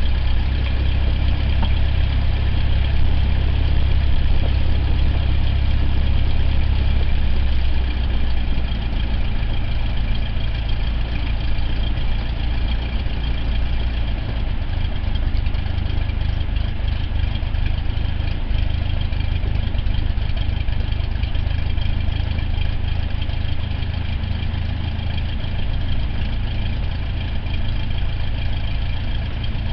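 Cessna 172's piston engine and propeller running at low power while the plane taxis, a steady low drone. About seven seconds in the engine note drops and the sound gets a little quieter, as if power is eased back.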